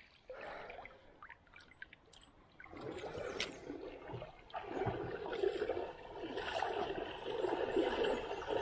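Shallow river water gurgling and trickling close to the microphone, around the legs of someone wading. It is faint at first and grows louder about three seconds in, with a single sharp click partway through.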